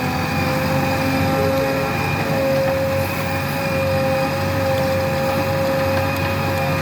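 JCB 3DX Plus backhoe loader's 74 hp diesel engine running steadily, with a constant whine over a low rumble.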